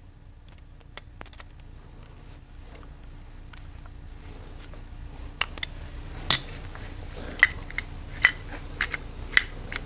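Small metal clicks and clinks from working on an aluminium carburetor float bowl: a screwdriver turning the float-pin screw and fingers handling the bowl and its float parts. Faint ticks at first, then about eight sharper, briefly ringing clinks in the second half.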